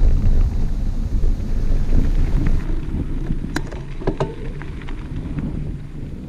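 Wind buffeting the microphone: a heavy, gusty low rumble, with a few sharp clicks or knocks about three and a half to four seconds in, easing off near the end.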